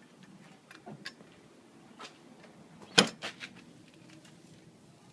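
Scattered light clicks and knocks, with one sharp knock about three seconds in: parts and tools being handled during a wheel hub assembly install.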